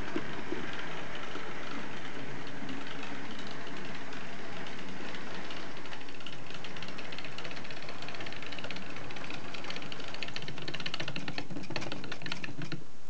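Bachmann OO gauge Jinty model tank locomotive running along the track: a small electric motor whirring, with rapid clicking that thickens about ten seconds in and then stops abruptly as the locomotive halts.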